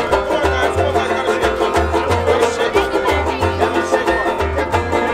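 Live street music led by a strummed banjo, with a repeating bass line underneath.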